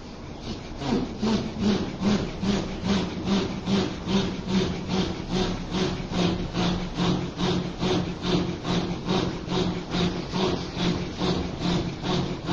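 A man's rhythmic breath-driven zikr chant, a rasping pitched pulse repeated about two and a half times a second. It starts about a second in and keeps a steady tempo.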